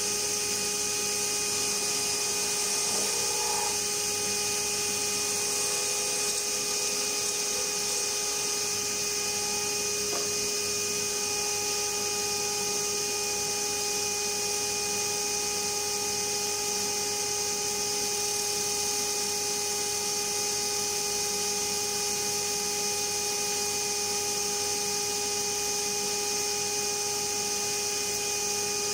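JET wood lathe running steadily with an even motor whine, turning a wooden lure blank.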